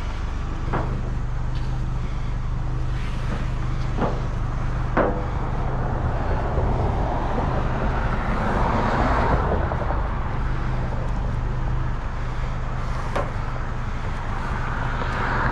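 A vehicle engine running steadily, with four sharp knocks scattered through.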